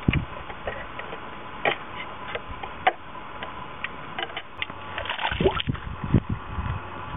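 Scattered sharp metallic clicks and taps from a gallon paint can being worked open, its lid pried at by hand. A few louder, duller knocks come about five to six seconds in.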